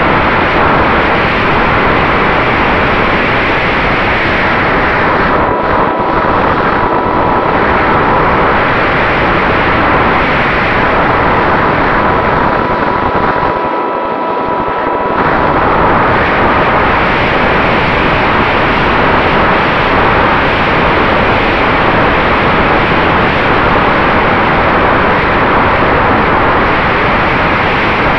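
Mini Drak FPV quadcopter in flight, heard through its onboard camera: loud, steady wind and propeller noise. A thin motor whine shows through from about five to fifteen seconds in.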